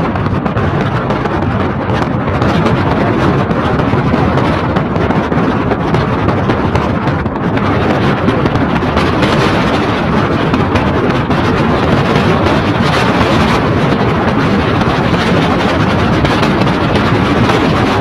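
Steady rush of wind and tyre noise from a car driving on a wet, rough road surface, heard through an open window. It turns hissier after about eight seconds.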